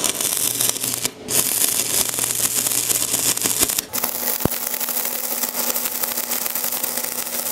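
Stick (MMA) arc welding with a 4 mm electrode at around 220 A on a Withus MULTI523CT inverter multi-welder: the arc crackles and sizzles steadily, with two brief dips, about a second in and just before 4 s.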